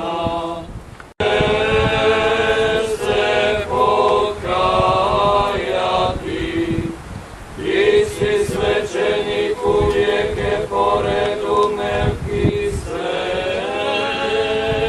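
Mixed group of men's and women's voices singing a church hymn in long held phrases, without instruments. The sound cuts out briefly about a second in, then the singing resumes.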